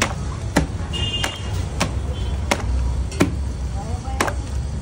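Soft, wet matka roti dough lifted by hand and slapped back down into a metal plate, about six sharp smacks at an uneven pace of roughly one every half second to second, over a steady low rumble. This beating, with water worked in, thins the dough to its stretchy consistency.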